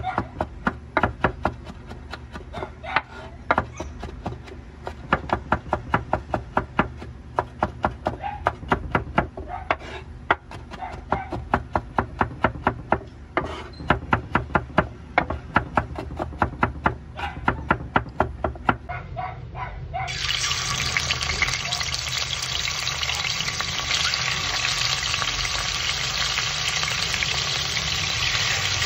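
Kitchen knife mincing garlic on a wooden cutting board: quick knocks of the blade, several a second. About twenty seconds in this gives way suddenly to chicken pieces sizzling steadily in hot oil in a pan.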